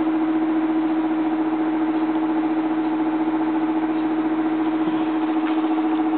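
Steady electric motor or fan hum with one strong low tone and fainter overtones, unchanging throughout.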